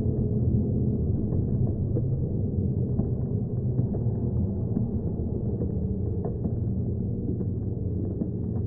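Deep, steady rumble of ambient sound slowed down with slow-motion footage, pitched far below normal, with faint scattered ticks.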